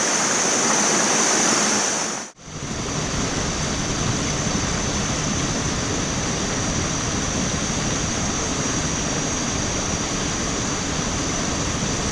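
Forest stream rushing over rocks and small falls, a steady wash of water. It cuts out for a moment about two seconds in and comes back deeper and fuller.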